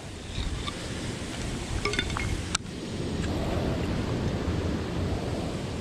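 Steady rush of water with wind on the microphone, and a couple of light metallic clinks about two seconds in from the rusty bar on the fishing magnet being handled.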